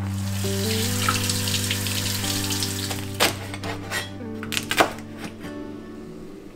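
Soft background music with held chords. Over the first few seconds food sizzles in the pot. Then a knife strikes a wooden cutting board about four times while slicing green chilies; the sharpest knock comes near the end.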